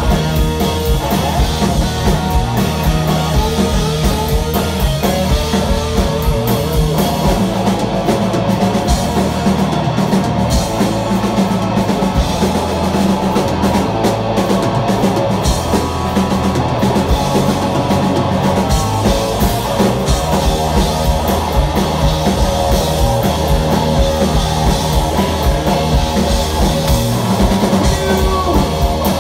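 Live punk rock band playing loudly: electric guitar, electric bass and a drum kit keeping a steady driving beat.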